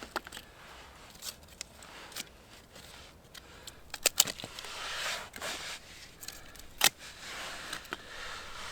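Scattered sharp clicks and taps between patches of soft rustling, the loudest clicks about four seconds in and again near seven seconds: small objects being handled.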